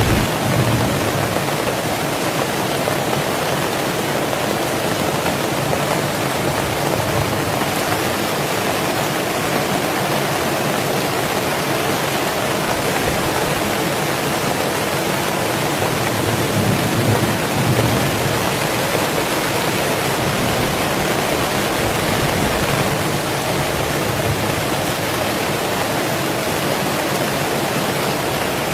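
Heavy rain falling steadily, an even rushing hiss with a slight swell in the low end about two-thirds of the way through.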